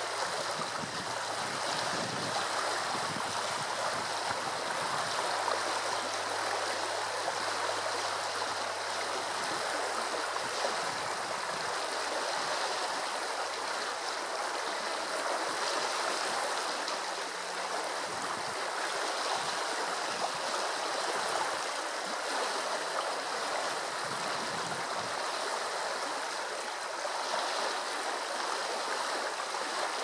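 A steady, even rushing hiss that does not change throughout.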